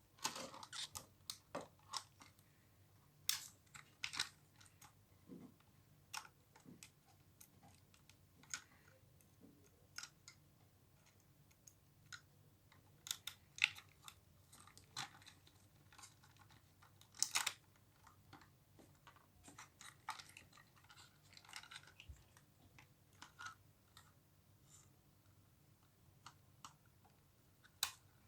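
Irregular light clicks, crinkles and rustles of hands handling plastic packaging and parts, with no motor running.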